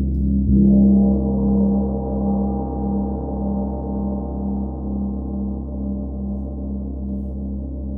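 A gong struck once about half a second in, ringing on with a slow, pulsing waver in its low tone as it gradually fades, over a steady low drone.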